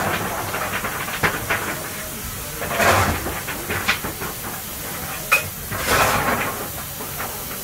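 Standing 1927 SACM 040 tank steam locomotive hissing steam steadily, with louder swells of hiss about three and six seconds in and a few short metallic clanks.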